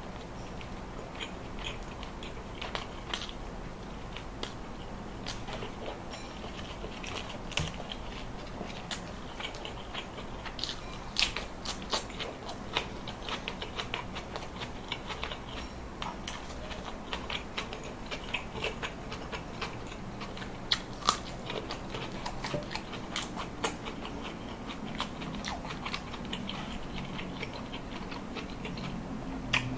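A person biting and chewing grilled chicken with rice and raw vegetables, with many irregular sharp crunching clicks.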